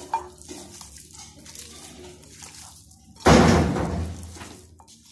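Hands squishing raw chicken pieces with garlic paste and salt in a glass bowl, a soft wet squelching. About three seconds in comes a sudden loud, noisy burst that fades away over about a second and a half.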